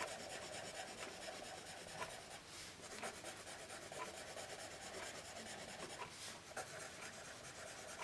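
Vintage Scripto 77 mechanical pencil's HB graphite lead writing on paper: faint, continuous scratching of pencil strokes.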